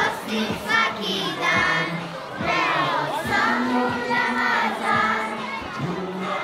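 A group of children singing together while walking, with crowd chatter mixed in.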